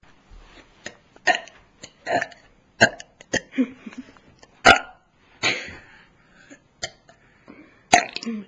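A person burping: a string of short belches, broken up by several sharp clicks.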